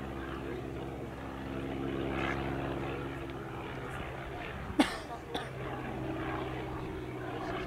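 Stampe SV4C biplane's piston engine and propeller droning steadily in flight, thinning a little in the middle and then returning. A sharp knock close to the microphone about five seconds in is the loudest sound, followed half a second later by a fainter one.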